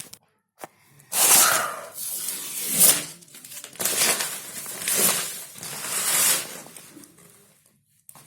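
Old wallpaper being torn off a wall in several long ripping pulls, starting about a second in and ending near seven seconds.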